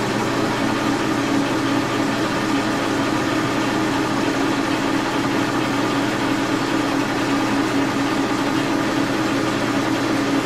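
Brown & Sharpe horizontal milling machine running steadily, its spindle turning a drill chuck as pin holes are drilled in an aluminum nut: an even, unbroken motor and spindle hum.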